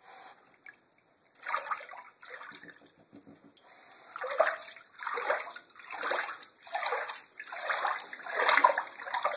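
A French bulldog pawing at shallow bathwater in a tub, splashing. A few splashes come near the start, then from about four seconds in they settle into a steady rhythm, roughly one every two-thirds of a second.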